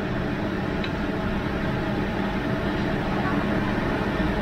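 Steady rushing background noise, a low rumble with hiss, with a faint click about a second in.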